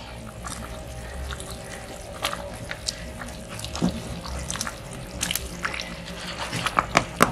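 A pot of chicken pepper soup at the boil, bubbling with many small scattered pops, and a few sharper clicks near the end.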